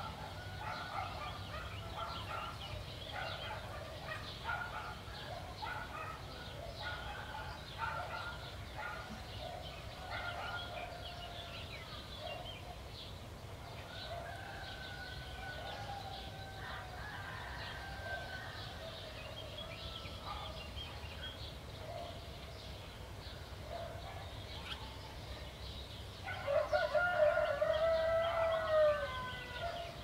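Small birds chirping and calling throughout a rural dawn chorus, then near the end a rooster crows once, loudly, for about three seconds.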